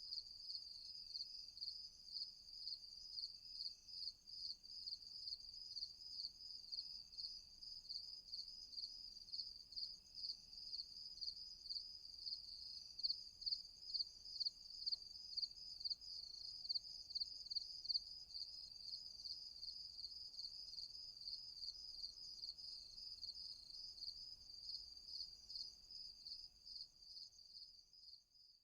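Crickets chirping in a steady, rapidly pulsing high-pitched trill, with fainter short chirps repeating about once a second.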